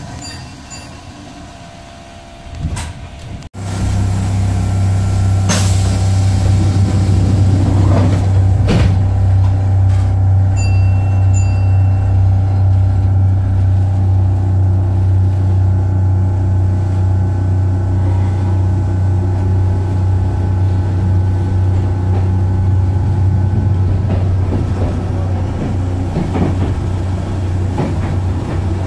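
Electric commuter train's under-floor equipment running with a loud, steady hum and a low pulsing while the train stands at a platform. It starts abruptly about three and a half seconds in after a quieter stretch, with a brief high beep near the middle.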